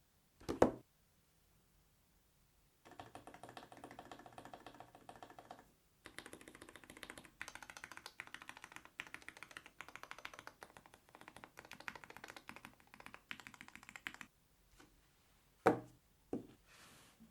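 Fast typing on a wireless low-profile split mechanical keyboard with Rime linear switches, a quick run of key clacks for about eleven seconds with a brief pause. A single sharp knock comes just before the typing and two more near the end.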